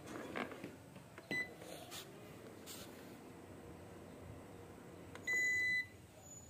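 Electric rice cooker's control panel beeping as its buttons are pressed to test the functions. A few light clicks come first, then a short beep about a second in. A longer beep of about half a second comes near the end.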